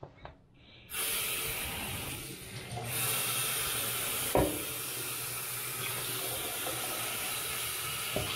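Faucet turned on about a second in, then water running steadily into a sink and over a wooden cutting board being rinsed, with one sharp knock about halfway through.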